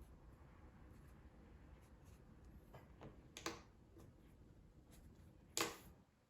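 Quiet handling of a wiring harness connector and multimeter probes, with two brief faint scrapes about three and a half and five and a half seconds in over a low room hum.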